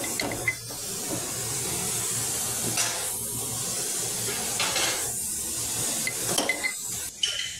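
Food-prep clatter: a utensil clinking and scraping against a plastic jar while spreading onto bread rolls, in a few short clusters near the start and near the end, over a steady hiss.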